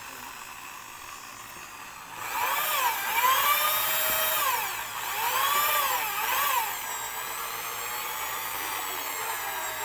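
Electric drill used as a paint-style mixer, its bit spinning in a bucket of foamy liquid soap. The motor runs quietly at first, then about two seconds in speeds up, its pitch rising and falling several times before it settles to a steady whir.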